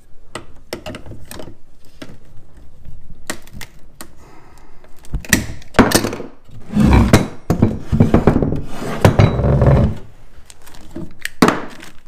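Clicks, knocks and clattering of clamps and resin tubing being taken off a vacuum-bagged carbon fiber layup, with a stretch of louder rustling and thumps in the middle.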